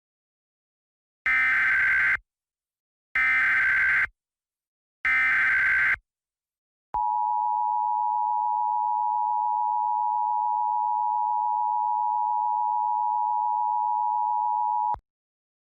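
Emergency Alert System test: three short bursts of digital SAME header data, each about a second long with a second's gap between them, then a steady attention tone near 1 kHz held for about eight seconds that cuts off suddenly.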